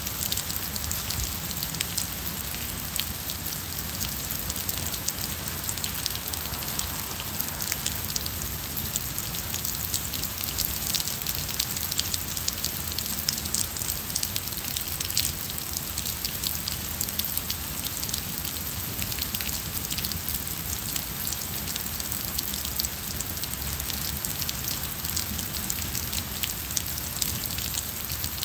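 Steady rain falling on wet paving and garden plants: an even hiss full of small, close drop ticks that keeps going without a break.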